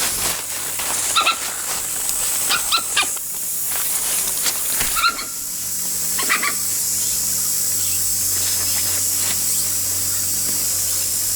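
A few short, high-pitched animal calls in the first half, over a steady hiss.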